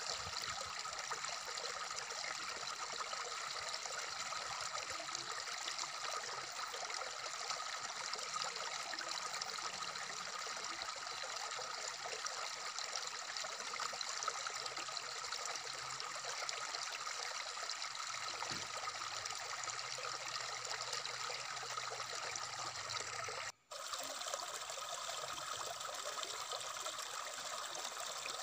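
Shallow stream running over rocks: a steady babbling rush of water. It cuts out for a split second about 23 seconds in.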